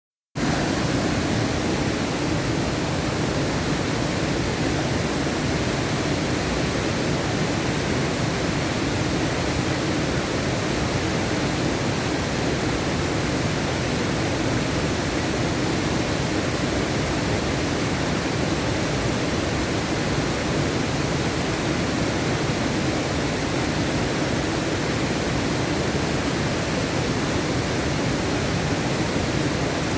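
Alibek Waterfall's falling water: a steady, unbroken rush.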